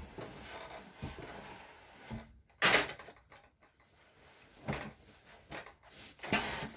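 Handling noise from a steam iron: a few short knocks and clunks as the iron is set down on its stand and picked up again, with cloth rustling between them. The sharpest knock comes about two and a half seconds in, with two lighter ones near the end.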